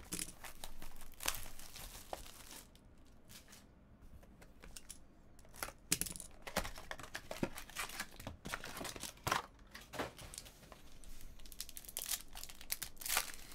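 Crinkling and tearing of packaging as a box of trading cards is handled and opened. Near the end a foil card pack is rustled and torn open.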